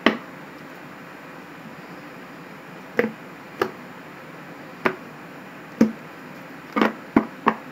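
Tarot cards handled on a tabletop: about eight short, sharp taps and snaps as cards are laid down and the deck is squared, a long gap after the first, then coming closer together near the end.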